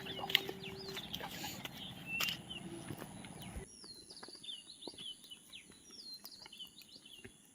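Parrots chirping in short, high calls with a few sharp clicks. About three and a half seconds in, the background noise drops away abruptly, leaving a few repeated high whistled calls.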